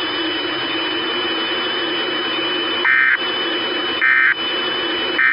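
Steady radio static hiss with a thin, steady high tone. About three seconds in come three short, shrill digital data bursts about a second apart: the EAS SAME end-of-message code that closes a weather-radio alert broadcast.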